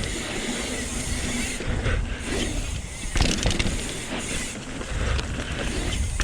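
Mountain bike descending a dirt trail at speed: wind buffeting the helmet-mounted microphone and tyres rolling over the ground, with rattles and knocks from the bike over bumps and a sharper knock about three seconds in.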